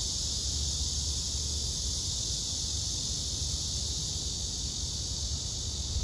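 Cicadas buzzing steadily in summer trees, one unbroken high shrill, over a low rumble.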